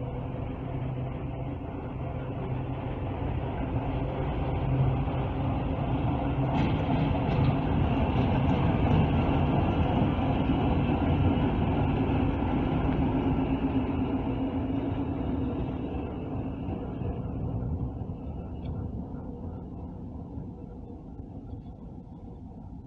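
ChME3 diesel shunting locomotive, its six-cylinder diesel engine running with a steady low note as it approaches, passes close by and moves away. It grows louder to a peak midway and fades toward the end.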